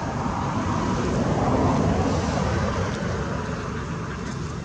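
A motor vehicle passing, its rumbling noise swelling to a peak about two seconds in and then fading.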